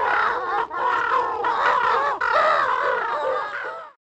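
Bird-like animal calls from many creatures at once, dense and overlapping, as a stock sound effect that starts and cuts off abruptly.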